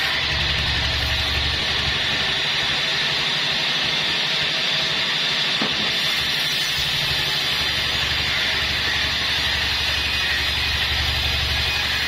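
Band sawmill running as its blade cuts lengthwise through a log: a steady high hiss of the cut over the low hum of the mill's drive.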